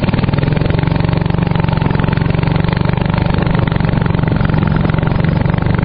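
Motorboat engine running steadily at constant speed, with a fast, even putter.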